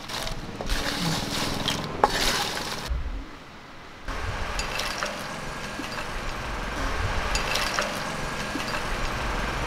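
Crisp fried pappadam pieces rustling and scraping as they are stirred with a wooden spatula in a pan. After a short lull about three seconds in, a steel slotted spoon makes a few light clinks against a glass dish as the pieces are served.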